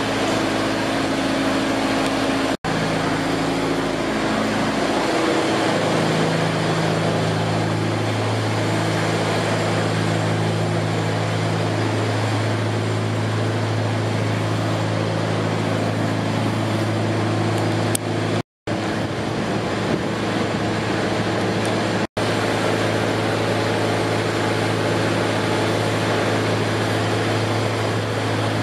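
Fire engines' diesel engines and pumps running steadily under load, a constant loud drone with a few held low hums, supplying charged hoses. The sound cuts out briefly three times.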